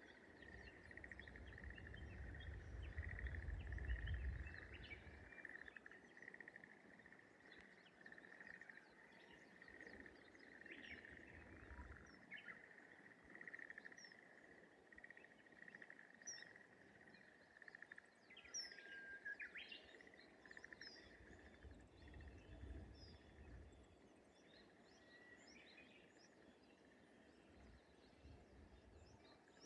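Quiet rice-paddy morning ambience: a steady, fast rattling trill from a frog or insect runs throughout, under scattered short bird chirps and calls. A low rumble sits underneath for the first few seconds and again briefly later.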